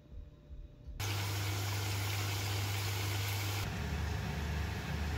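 Oven running with a steady fan hum and hiss that starts suddenly about a second in. Partway through the hiss drops away, leaving a lower, wavering hum.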